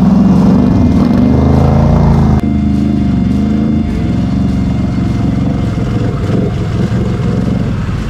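ATV engine running under way, its pitch rising and falling with the throttle. The engine sound drops and changes abruptly about two and a half seconds in.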